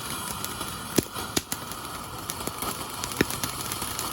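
Fireworks going off: a steady crackling hiss broken by sharp pops and cracks, the loudest about a second in and again past three seconds.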